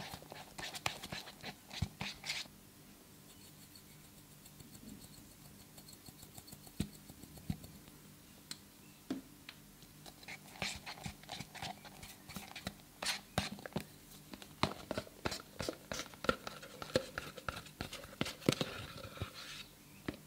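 Thick, sticky slime mixture stirred in a plastic cup with a plastic spoon: quick wet clicks and squelches. They thin out and go quiet for several seconds a few seconds in, then come thick and fast again.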